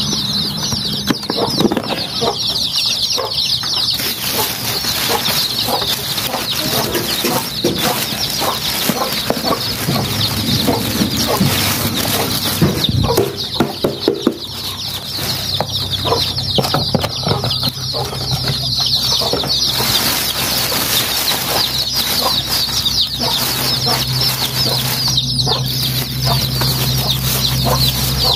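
A brood of chicks cheeping constantly in many overlapping high peeps, with the rustle and knock of plastic bags and a plastic tub being handled.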